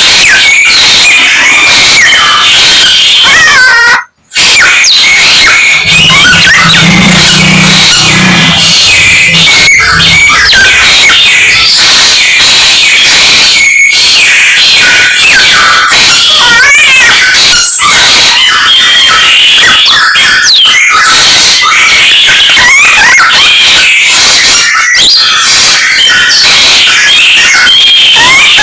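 Samyong songbird singing a long, varied song of rapid whistles, trills and pitch glides, packed with mimicked calls of other birds. The sound cuts out briefly about four seconds in.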